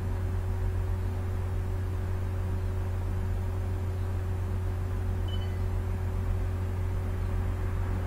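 Steady low electrical hum with a constant faint hiss, unchanging throughout.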